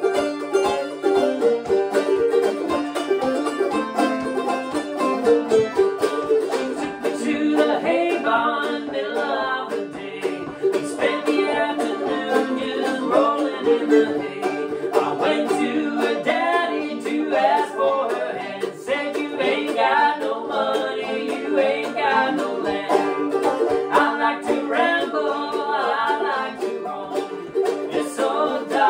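Banjo and mandolin playing an upbeat bluegrass-style tune, with a man singing over them from about eight seconds in.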